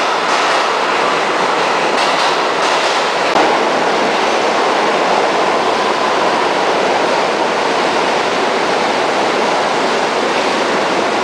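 New York City subway train noise in an underground station: a steady, loud running noise of train wheels on track, with one short knock about three and a half seconds in.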